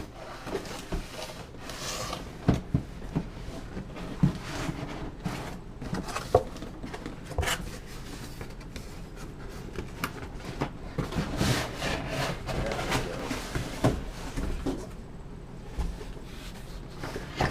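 Cardboard packaging scraping and rubbing as it is slid out of its box, with irregular knocks and rustles throughout.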